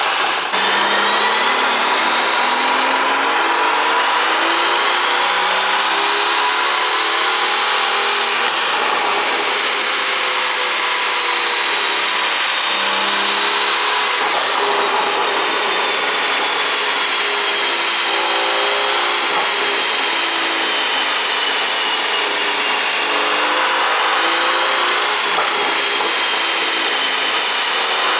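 Mercedes-AMG S65's twin-turbo V12 running continuously under load, a high, whining engine note whose pitch climbs slowly and dips back, with brief breaks about 8 and 14 seconds in.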